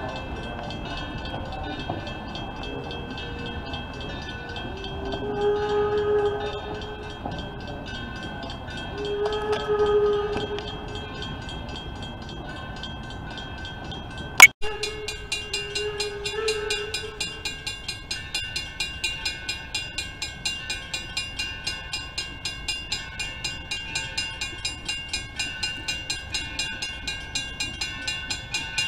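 Steam locomotive Torch Lake blowing its whistle three times, about 6 s, 10 s and 15 s in, over a steadily ringing grade-crossing bell. A sharp click comes about halfway through, after which the bell's strikes stand out evenly at about three a second.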